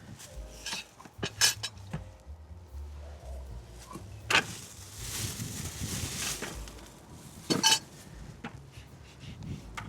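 Cookware and utensils clinking: several sharp separate clinks, with a soft hiss about halfway through.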